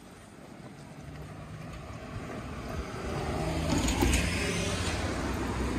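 A van driving past on the street, its engine and tyre noise growing louder to a peak about four seconds in, then easing.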